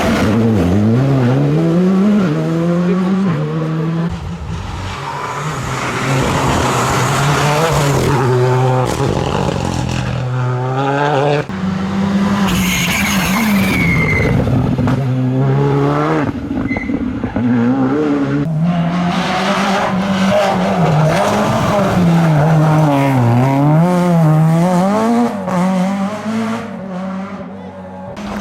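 Rally car engines at full attack on a special stage, revving hard with the pitch climbing through the gears and dropping on lifts and downshifts, with a tyre squeal about halfway through.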